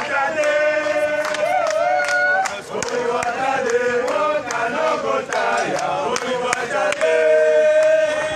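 Crowd of supporters chanting and singing together in unison, with long held notes early on and again near the end.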